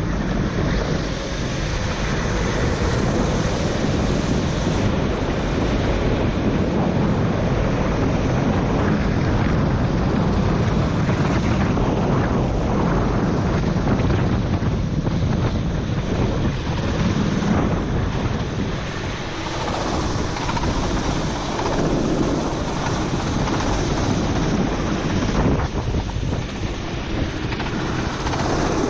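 Onboard sound of a four-stroke racing kart at speed in heavy rain: the engine running under a steady rush of wind buffeting the microphone, mixed with water spray.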